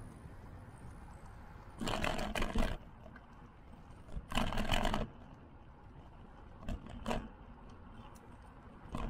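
Wind and tyre rumble on a bike-mounted action camera's microphone while riding along a paved path. Two louder rushing bursts of about a second each come early on, and a few short knocks follow later.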